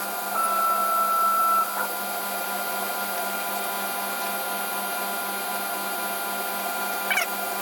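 Steady hum of an electric machine with several held tones. A louder high whine sounds for about a second near the start, and a short chirp comes near the end.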